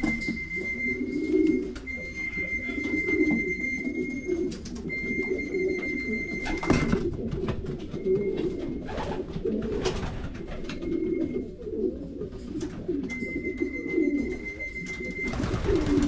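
Many racing pigeons cooing together inside a loft, a continuous low burbling. A steady high tone sounds on and off over it, each time for one to three seconds, with a few sharp knocks or claps.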